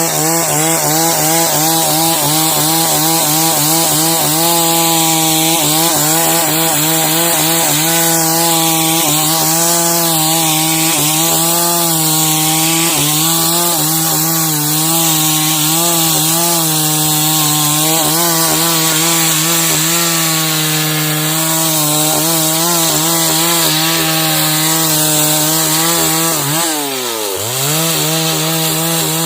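Two-stroke chainsaw running at steady high revs under load, sawing lengthwise through timber. About 27 seconds in the revs drop sharply and then climb back up.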